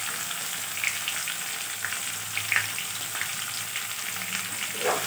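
Sliced onions sizzling in hot mustard oil in a metal kadai, just added, with a metal spatula scraping and stirring them against the pan.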